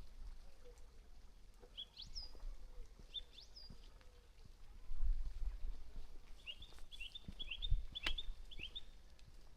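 Garden songbirds calling: two rising whistled notes early on, then a quick run of short chirps in the second half. Bursts of low rumble, the loudest moments, come about halfway through and again near the end.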